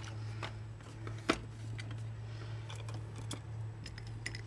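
Small objects being handled and moved around: scattered light clicks and knocks, the sharpest about a second and a third in, over a steady low hum.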